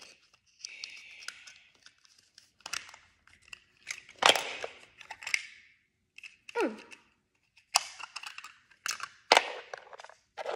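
Small plastic toy boxes being handled and set down on a wooden floor: irregular clicks, taps and short rustles.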